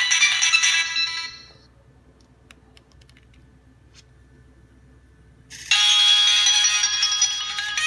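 Nokia 3220 ringtone melody fading out, a few faint clicks in the gap, then another ringtone starting abruptly about five and a half seconds in.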